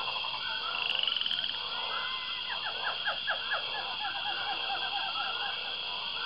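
Frogs croaking in rapid repeated trills over a steady high-pitched drone, like a night-time wetland chorus.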